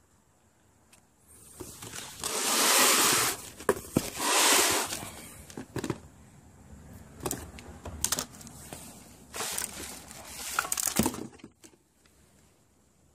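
Clear plastic wrap crinkling and a cardboard box rustling as a wrapped PowerBlock Elite adjustable dumbbell is handled and lifted out of its packaging. There are three bursts of crinkling, with sharp clicks and knocks between them.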